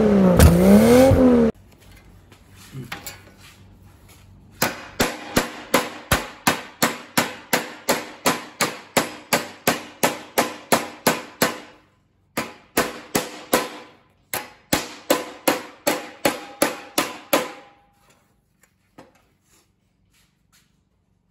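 A short swooping intro sound effect, then a hammer repeatedly striking rusted sheet steel over a steel post: sharp metallic blows about two and a half a second with a slight ring, in three runs with two short pauses, over about thirteen seconds.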